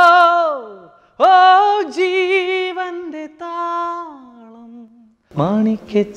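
Unaccompanied singing in a high voice, with no instruments. A long held note with vibrato fades out about a second in. A second phrase of held and gliding notes then trails off around five seconds in. Near the end a lower voice begins singing or chanting.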